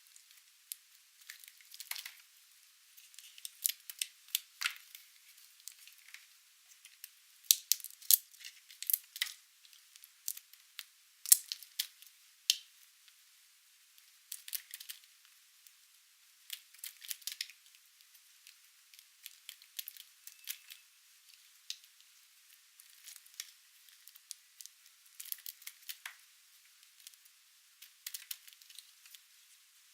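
Dry, painted soap being cut: clusters of short, crisp crackles as the brittle soap breaks under the blade, coming in bursts every second or two with brief pauses between cuts.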